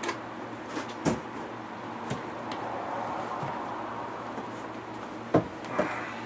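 Cardboard laptop packaging being handled and opened: scrapes and a few sharp knocks, the loudest about five and a half seconds in.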